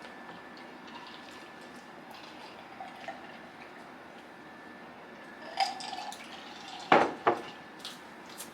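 Plates and utensils clinking at a meal table: scattered light clicks, then two sharp knocks in quick succession about seven seconds in.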